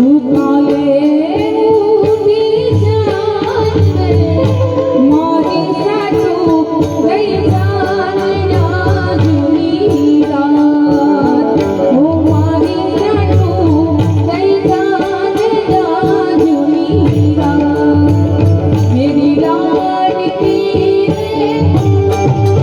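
Loud Indian song with a singer's voice gliding over drones, drums and a heavy, pulsing bass, played through a DJ sound system.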